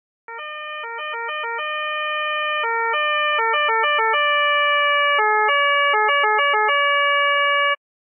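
Austrian police two-tone siren, alternating between a lower and a higher pitch in an uneven pattern of quick switches and longer held high notes. It swells in over the first few seconds and cuts off suddenly near the end.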